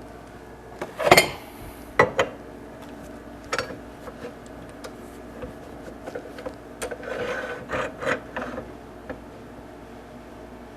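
Metal lathe parts (pen mandrel, bushings, tailstock fittings) being handled and fitted: irregular clinks and knocks, the loudest a clatter about a second in, with a denser run of small knocks near the end, over a faint steady hum.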